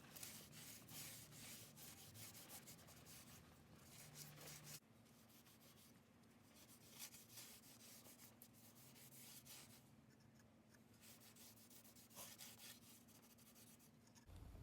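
Faint, irregular rubbing strokes of hand work on the restored pickaxe, over a low steady hum.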